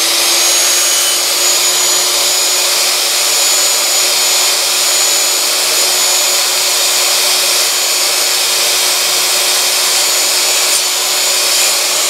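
Electric miter saw running at full speed with a steady whine, its blade cutting down through a strip of wooden quarter round moulding.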